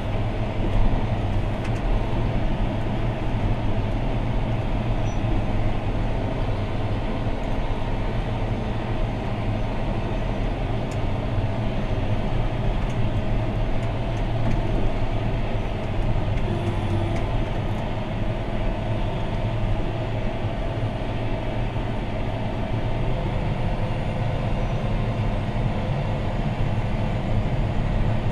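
John Deere 6215R tractor's six-cylinder diesel engine running steadily under load while pulling a plough, heard from inside the cab.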